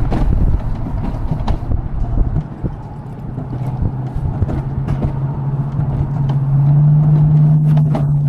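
Alpine coaster cart rolling along its metal track, a steady rumble with rattles and clicks and a low hum that grows louder in the second half.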